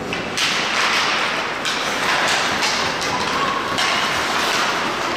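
Ice hockey in play: skates scraping the ice, with several knocks and thuds of sticks, puck and boards.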